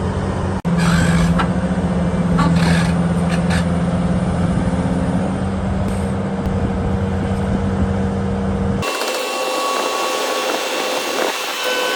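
Heavy diesel engine of an excavator running steadily with a deep drone. About nine seconds in it cuts abruptly to a thinner, hissy machine noise with faint high whines and no low rumble.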